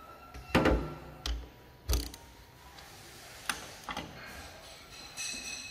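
Several separate knocks and clunks of metal tools and engine parts handled on a wooden workbench while a piston in its ring compressor is set into a cylinder of the engine block. The loudest knock comes about half a second in, with more over the next second and a half and lighter ones about three and a half and four seconds in.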